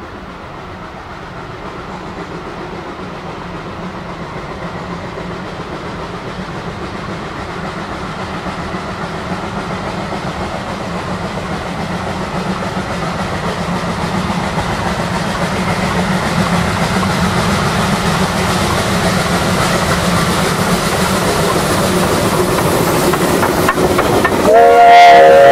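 Narrow-gauge steam train approaching, the sound of its running growing steadily louder. Near the end its steam whistle starts a loud, steady blast.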